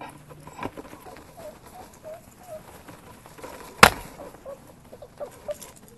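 Puppies' paws pattering and scrabbling across pads on the floor, with a few short high whimpers about two seconds in. A sharp knock about four seconds in is the loudest sound.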